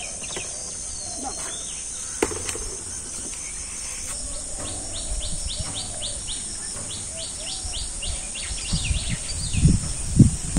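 Rural ambience: a steady high drone of insects, with a bird calling in quick, repeated short chirps, about two or three a second, through the second half. A few low thuds come near the end.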